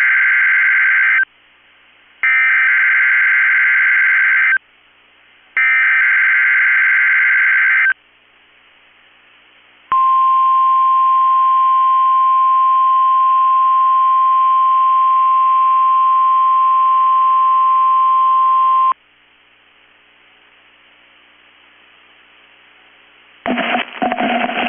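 NOAA Weather Radio test signal: three SAME digital header bursts, each a harsh warbling data screech, followed after a short pause by the steady 1050 Hz warning alarm tone held for about nine seconds. This is the weekly test activation of the warning alarm.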